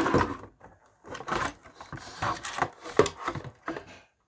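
Irregular clicks, knocks and clatter of vintage radio parts being handled during a take-apart. The sound stops abruptly about four seconds in.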